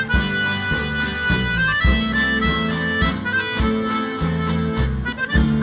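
Live sertanejo band playing an instrumental passage: a reedy lead melody over a steady, pulsing bass beat.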